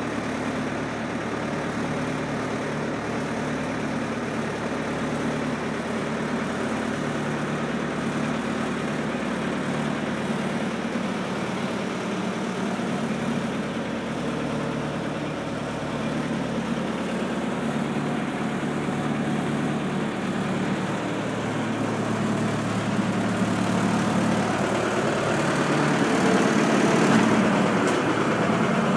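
Four-cylinder 80 hp Ford Lehman marine diesel running steadily at about 1200 rpm under load, pushing the moored boat against its dock lines, heard from inside the cabin. It grows somewhat louder near the end.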